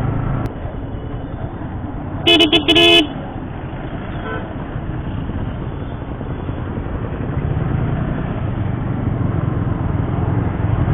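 A vehicle horn honking in a quick run of short toots, under a second in all, about two seconds in. The toots sound over steady wind rush and motorcycle road noise.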